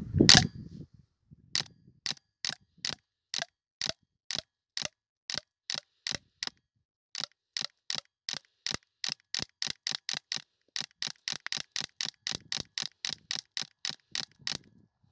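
Suppressed high-pressure-air (HPA) airsoft carbine firing 0.40 g BBs, one short sharp crack per shot. The first crack is the loudest. The shots come about two a second, with a short pause about six seconds in, then quicken to three or four a second.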